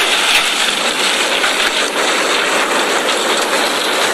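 A dump truck tipping its load: a steady, loud, noisy machine rush from the truck's engine as rock and soil slide out of the raised bed.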